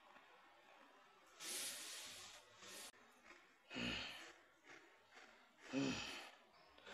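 A person breathing: one long breath about a second and a half in, then two shorter, sharper breaths about two seconds apart.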